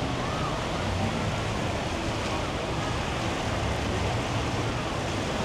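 Steady rushing water at a water park, with faint chatter of distant voices.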